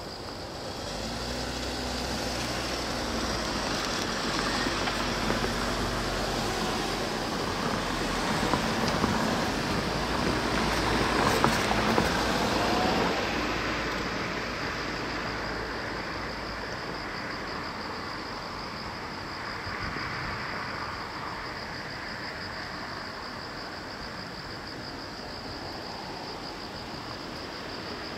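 A vehicle running past, growing louder to a peak about twelve seconds in and then fading away, over a steady high hiss.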